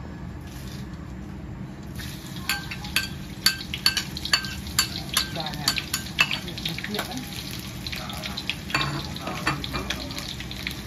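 Hot oil in a steel wok spitting and crackling as sliced onion and chilli are dropped in about two seconds in, with sharp pops for several seconds that settle into a steady sizzle.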